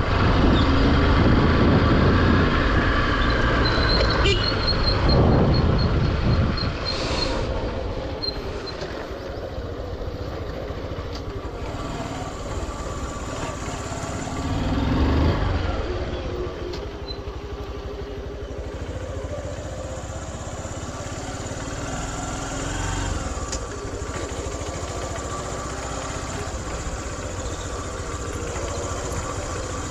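Small motorcycle's engine running while it is ridden along a road, with wind noise. It is louder over the first few seconds and swells briefly about halfway through.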